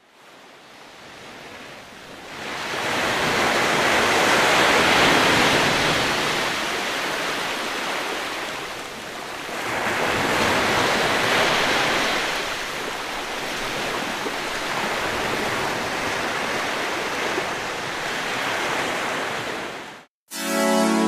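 Shallow ocean surf washing up and over the sand at the water's edge, swelling louder twice as waves run in. Near the end the surf sound cuts off abruptly and keyboard music begins.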